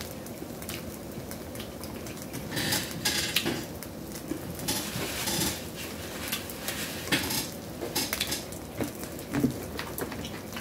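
Red king crab legs being handled and pulled apart over a serving platter: scattered clicks and clatters of shell against the plate, with two longer stretches of crackling about two and a half seconds in and again about five seconds in.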